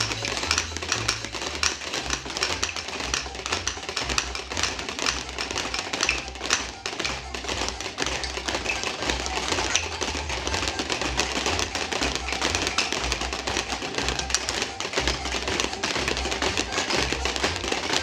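A child playing an instrument by striking it, with quick, irregular taps and knocks throughout.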